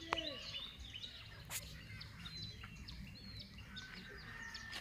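Small birds chirping and calling, many short overlapping chirps, with a couple of sharp clicks near the start and about a second and a half in.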